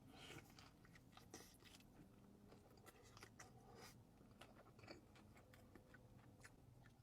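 Faint chewing of a fried hot-chicken slider: soft, irregular mouth clicks and light crunches.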